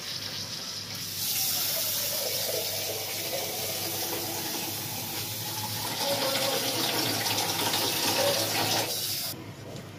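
Water being poured into a pressure cooker of browned buffalo trotters in masala, a steady rushing hiss that cuts off abruptly a little after nine seconds in.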